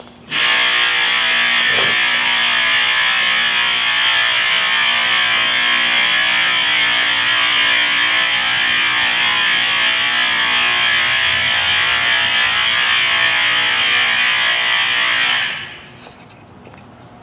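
Loud, steady, harsh buzzing tone from the baler's start-up warning horn. It cuts in abruptly, holds unchanged and cuts off after about fifteen seconds, warning that the machine is about to run.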